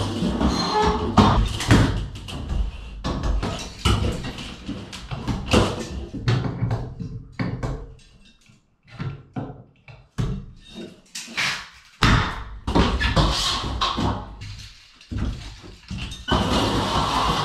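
Irregular clanks and knocks of metal wire tracks and electrical wiring being pulled down and handled inside a bare metal shelter, with background music. The clatter drops away for a couple of seconds about halfway through.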